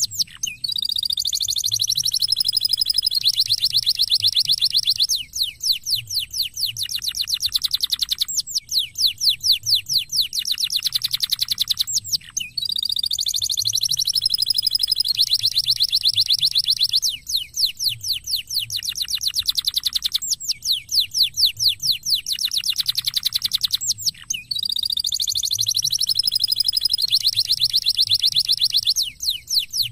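Domestic canary singing a long song of rolling trills and fast repeated notes, with short gliding phrases between them. The same song sequence comes round about every twelve seconds.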